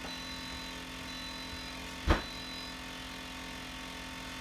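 A single sharp knock about two seconds in, over a steady low electrical hum.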